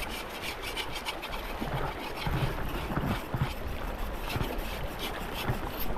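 Shallow mountain stream running over rocks, with irregular strokes of a knife blade scraping a marmot carcass as it is cleaned in the water.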